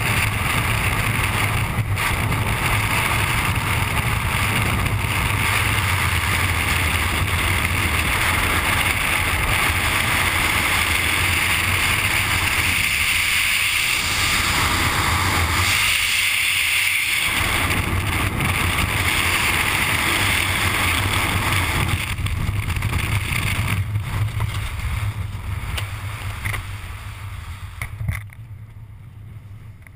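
Freefall airstream rushing over a helmet-mounted GoPro camera's microphone, loud and steady. It dies away over the last few seconds as the parachute opens, with a short burst near the end.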